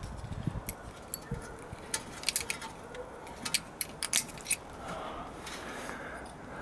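Light metallic clicks and clinks, a quick run of them from about two to four and a half seconds in, as a screwdriver and a new brake pad are worked against a VW Golf Mk5 front brake caliper.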